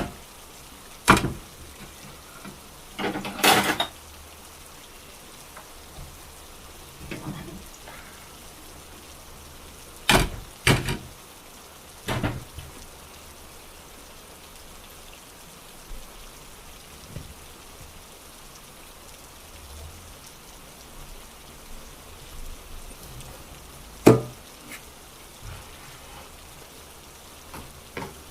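Steady rain falling, with a handful of sharp clicks and knocks scattered through it, the loudest one late on.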